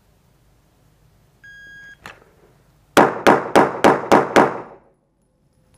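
A shot timer's electronic start beep lasting about half a second, a short click, then six rapid 9mm pistol shots from a Glock 17 Gen 4, evenly spaced about 0.3 s apart: a Bill Drill, first shot about 1.5 s after the beep.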